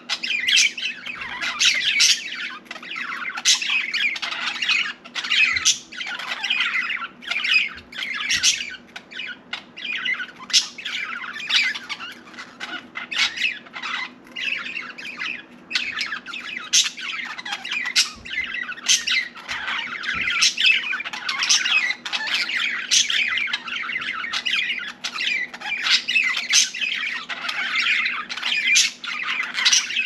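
Budgerigar chattering and warbling non-stop, the run of chatter broken by many sharp clicks and squawks.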